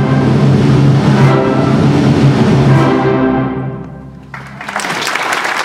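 Concert band of woodwinds, brass and percussion holding a final chord that fades out about four seconds in, at the end of the piece. The audience then breaks into applause.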